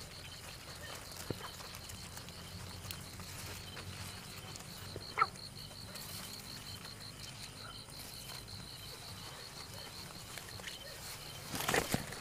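A night insect trilling steadily in a high, evenly pulsed rhythm, with a short sharp chirp about five seconds in. Near the end, rice leaves rustle loudly as a hand pushes through the plants.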